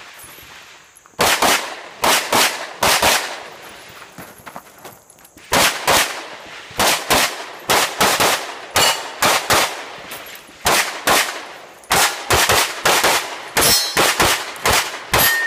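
Rapid pistol fire from a compensated Open-division race gun: about thirty shots in quick pairs and strings of three to five, starting about a second in, with one pause of about two seconds early on while the shooter moves between positions.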